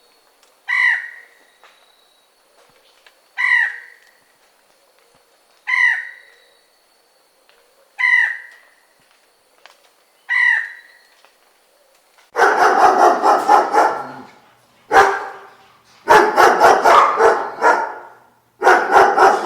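Five short harsh bird calls, evenly spaced about every two and a half seconds. Then, from about twelve seconds in, a dog barking loudly in quick runs of many barks.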